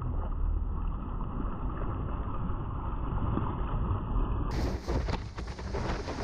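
Muffled rumble of wind and sea water on an action camera's microphone as a surfboard is pushed through shallow surf. About four and a half seconds in, it changes abruptly to a brighter hiss of rushing white water and splashes as the board rides a wave.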